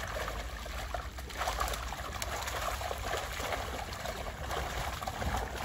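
Shallow river water running steadily over stones, with faint scattered rustles and ticks from a nylon cast net and sack being handled at the water's edge.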